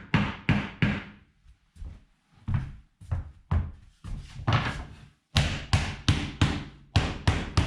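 Hammer blows on wood: irregular strikes with short gaps, settling about five seconds in into a steady run of about three blows a second, while working on wooden floor boards.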